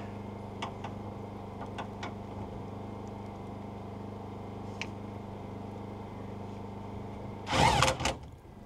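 A cordless impact driver runs in one short burst, under a second long, about seven and a half seconds in, driving the nut onto the stud of the new steel fuel-tank strap. Before it there is only a steady low hum and a few faint clicks.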